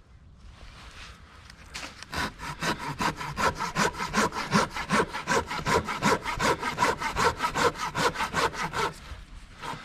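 Hand saw cutting through wood with quick, even back-and-forth strokes, about five a second, starting about two seconds in and stopping near the end.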